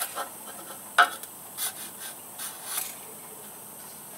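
Metal feeler gauge blade scraping as it is drawn between an aluminium straightedge rule and a cylinder block's deck surface, with one sharp click about a second in and a few short scrapes after it.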